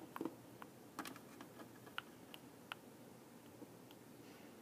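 Faint, scattered clicks and taps of small plastic toy figures being handled and set down on a plastic toy-house shelf.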